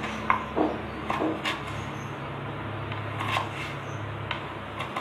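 A kitchen knife dicing banana stem slices on a wooden chopping board: a few irregular sharp knocks of the blade striking the board, over a steady low hum.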